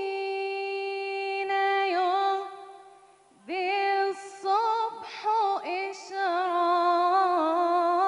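A woman singing an Islamic nasheed solo and unaccompanied into a microphone, holding long notes with ornamented turns. The voice fades out about two and a half seconds in for a breath and comes back about a second later.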